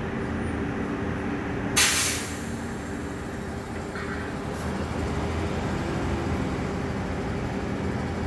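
Machinery at a work site running with a steady low hum. About two seconds in comes one loud, sharp burst, the kind of 'piak' noise the resident is complaining about.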